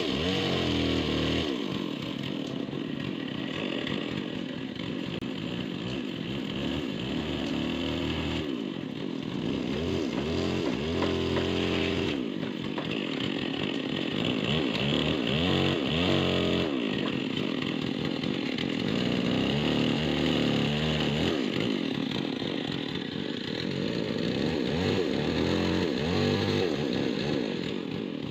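Chainsaw running throughout, its engine speed rising and falling again and again as it cuts a large dry tree.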